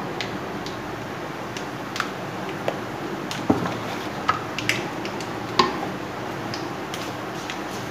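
Hot oil of a tadka sizzling in a frying pan, with whole spices and freshly added red chilli powder frying in it, and scattered sharp crackles and pops.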